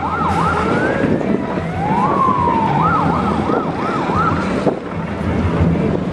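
An electronic siren warbling rapidly up and down, about three cycles a second, breaking into a single rising then falling sweep about two seconds in, warbling again, and stopping at around four and a half seconds. A steady low boat-engine hum runs underneath.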